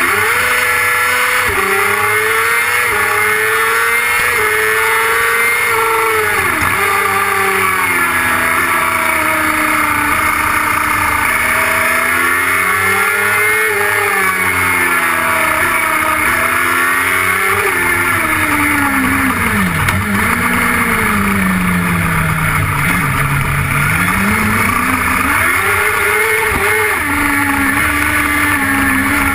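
Onboard sound of the DSP XK600 autocross car's engine pulling hard from the start line, revving up through several quick upshifts in the first few seconds. After that the revs rise and fall as the car lifts and accelerates through the corners, with a long slow drop about two-thirds of the way through before it climbs again.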